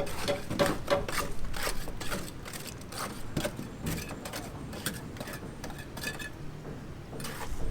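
Irregular light clicks and knocks, scattered through, with a short pitched sound just after the start.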